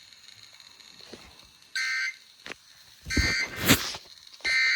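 Three short, buzzy digital data bursts of a NOAA Weather Radio SAME alert code from a weather radio's speaker, about a second apart. A brief scuffing noise overlaps the second burst.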